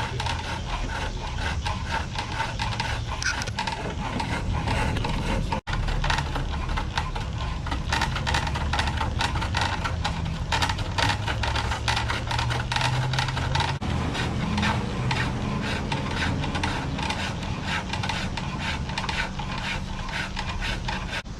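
Turning tool cutting wood on a spring pole lathe: rhythmic scraping in repeated short strokes as the treadle and pole spin the workpiece back and forth.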